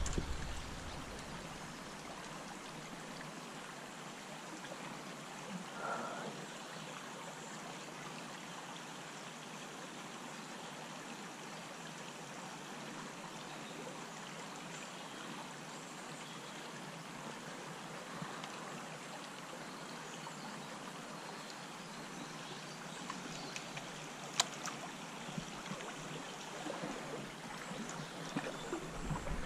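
Small stream running over its bed: a soft, steady rush of water, with a few faint clicks in the last few seconds.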